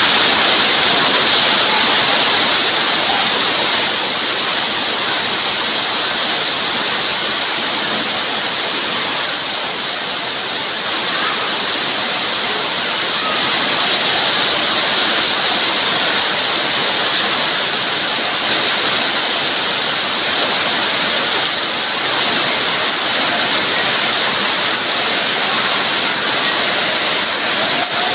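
Heavy rain falling steadily onto a wet yard, a dense, even hiss of a downpour.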